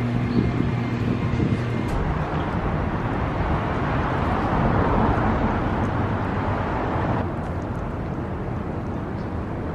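City street traffic heard from the sidewalk: a steady rush of road noise, with a passing vehicle swelling and fading about halfway through. The sound drops abruptly and turns quieter about seven seconds in.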